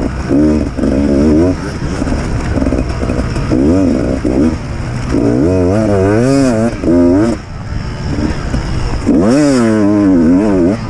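Beta 200 RR two-stroke enduro motorcycle engine under hard riding, heard from the bike's onboard camera: its pitch rises and falls quickly several times as the throttle is worked, drops off briefly past the middle, then climbs hard again near the end.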